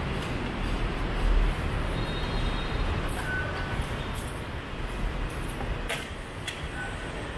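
Steady city street traffic noise, a low rumble of motorbikes and cars, swelling briefly about a second in, with a few short faint high beeps and a couple of sharp clicks near the end.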